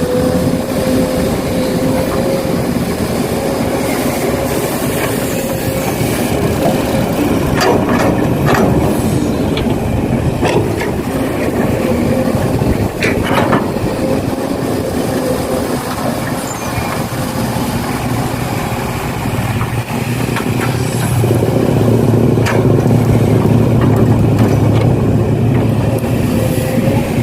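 Small electric motors and gearboxes of radio-controlled construction models running with a steady whine. A few sharp clicks and knocks come through, and a deeper hum joins about three quarters of the way in.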